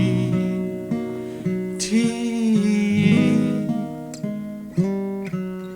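Instrumental music: an acoustic guitar plucks a run of single notes, each one ringing and fading before the next.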